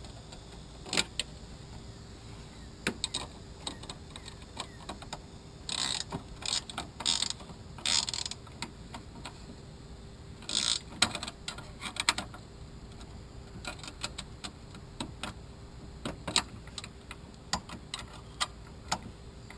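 Wrench tightening a 10 mm bolt on an air-horn mounting bracket: irregular metallic clicks and clinks, with a few short scraping rustles of handling a little way in and about halfway through.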